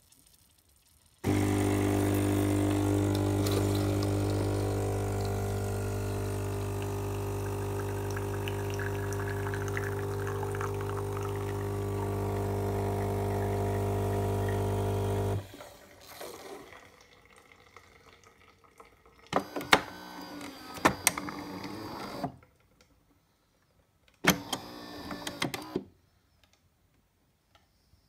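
Philips HD8844 super-automatic espresso machine's water pump running with a steady loud hum for about fourteen seconds, then cutting off suddenly. Two shorter, quieter mechanical runs with clicks follow near the end.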